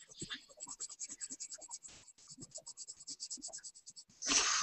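Pencil scratching on paper in quick back-and-forth shading strokes, about eight a second. A louder rush of noise comes near the end.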